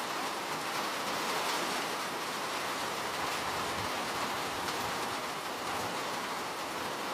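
Steady rainfall, an even hiss of many drops with faint individual drop ticks.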